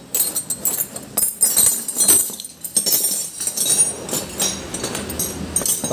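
Steel combination and open-end wrenches clinking and clattering against each other as they are pushed together into a pile on a wooden board: a rapid, irregular run of metallic clinks.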